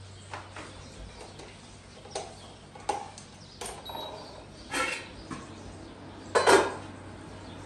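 Irregular knocks and clatter of kitchen work, about half a dozen separate hits over several seconds, the loudest near the end, over a steady low hum.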